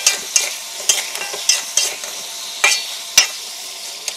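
Chicken pieces frying in oil with spices in an aluminium wok, sizzling steadily, while a metal spatula stirs them with repeated scrapes and clacks against the pan. The sharpest clack comes about three seconds in.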